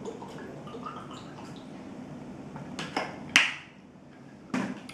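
Drinking from a plastic water bottle: faint small clicks and handling sounds, then a sharp, loud sound about three and a half seconds in, and another shortly before the end.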